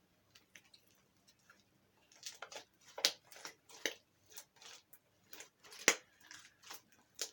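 Slime being kneaded and squeezed by hand: irregular sticky clicks and pops. They are sparse at first and come thicker from about two seconds in, with the sharpest pops about three and six seconds in.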